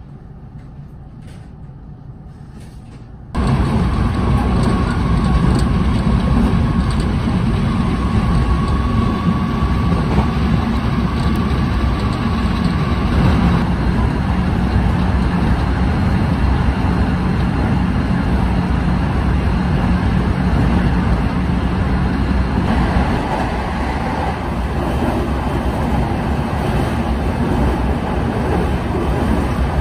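Running noise of a JR West 223 series electric train at speed, heard from inside the car: a steady, loud rumble that cuts in suddenly about three seconds in after a quieter stretch, with a faint steady high whine over roughly its first ten seconds.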